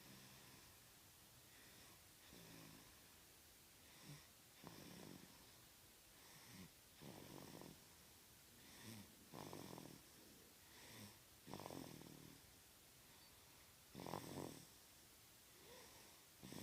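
Slow, regular snoring, faint, one snore about every two and a half seconds. Each starts with a short catch and swells into a rasping breath.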